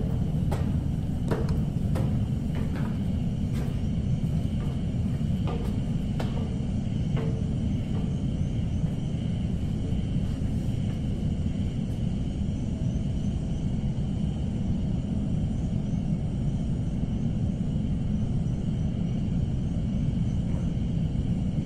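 Footsteps climbing stairs, a knock every second or less, fading out after about seven seconds, over a steady low rumble that runs throughout.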